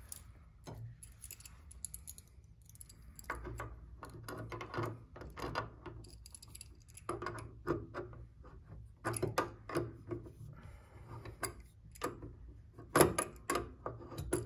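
Vise-grip locking pliers clinking and clicking against a brass piano pedal rod and its nut as the nut on the middle pedal rod is worked loose. The metal clicks come in irregular clusters, the loudest about 13 seconds in.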